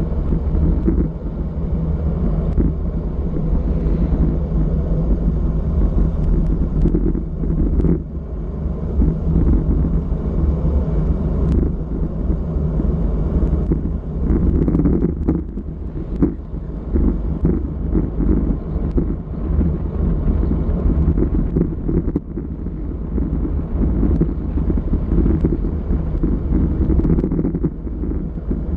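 Wind buffeting the GoPro's microphone on a road bike riding at about 30 km/h, a loud, uneven low rumble with no letup.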